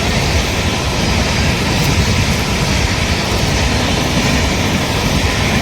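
Steady wind rushing and buffeting against the microphone, a continuous loud rumble with no breaks.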